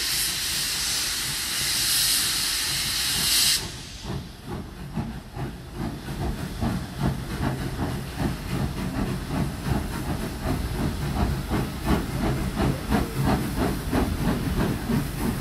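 Steam locomotive letting off a loud, steady hiss of steam that cuts off suddenly about three and a half seconds in. Then its exhaust chuffs in a regular beat, about two to three a second, over a low rumble as it gets under way.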